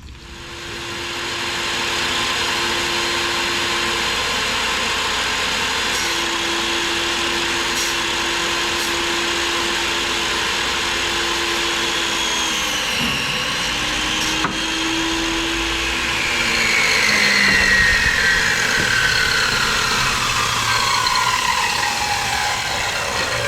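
Table saw starting up and ripping maple boards to width. The motor comes up to speed over the first couple of seconds and then runs steadily, its pitch sagging briefly as the blade works through the wood, and a falling whine runs through the last several seconds.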